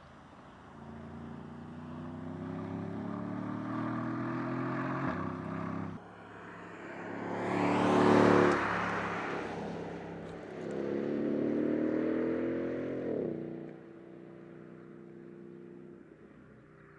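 Mercedes-Benz CLS63 AMG Shooting Brake's twin-turbo V8 accelerating hard on a track: a rising engine note, a loud pass-by about eight seconds in, then another rising run whose pitch drops sharply near the end, leaving a faint steady engine sound.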